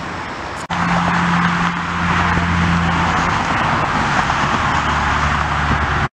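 Steady motor-vehicle noise: a broad rush with a low, even engine hum underneath. It shifts abruptly about a second in and cuts off suddenly at the end.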